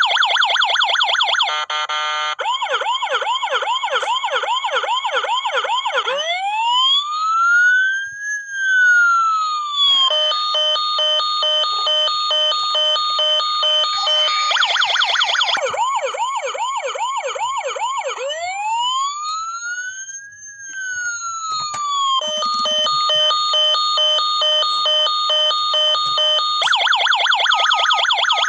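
Toy fire truck's electronic siren cycling through its patterns: a fast yelp with steady pulsing beeps over it, and twice a slow wail that rises and then falls. Several siren patterns sound on top of each other at once.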